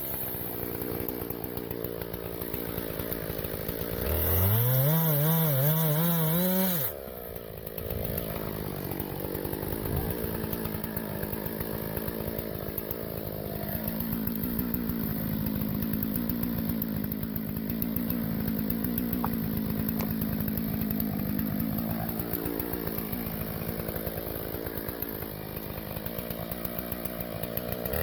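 Husqvarna 576 XP two-stroke chainsaw running: it revs up with a rising pitch about four seconds in, drops back suddenly about three seconds later, then runs steadily at a lower, slightly wavering speed.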